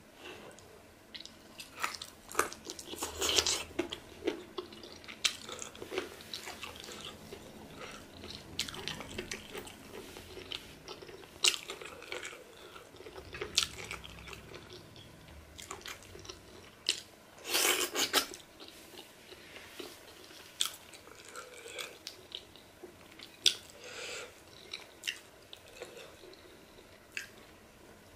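A person chewing and biting pork pepper soup eaten by hand. The sound is irregular wet mouth smacks and clicks, with louder bursts about three seconds in and again about halfway through.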